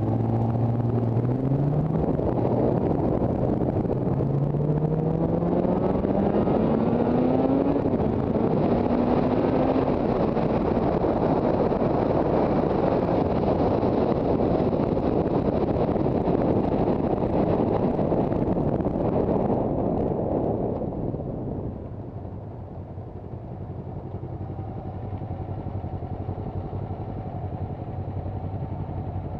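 Yamaha TZR250 two-stroke twin accelerating through the gears, its pitch climbing and dropping at each shift, then a steady rush of wind and engine at speed. About twenty seconds in, the rush dies away and the engine runs on more quietly at low speed.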